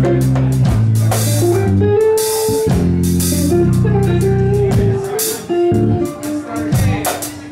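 A live jazz trio of electric guitar, electric bass and drum kit playing. Held bass notes and guitar lines run under drum strokes and several cymbal washes.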